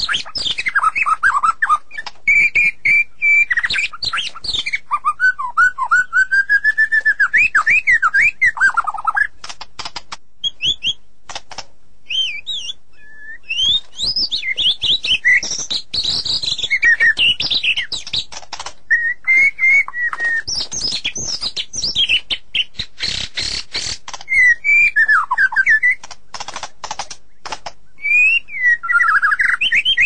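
White-rumped shama (murai batu) singing: a continuous run of varied whistled phrases that slide up and down in pitch, mixed with rapid runs of short, harsh clicking notes.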